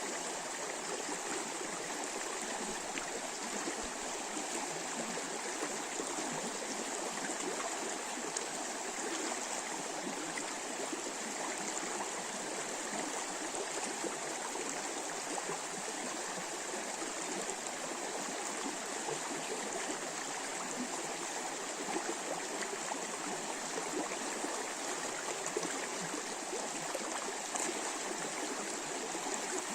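A river running over shallow rapids, a steady, unbroken rush of babbling water.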